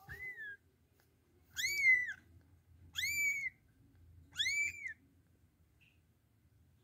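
A kitten mewing: four high, thin mews about a second and a half apart, each rising then falling in pitch, the first one fainter.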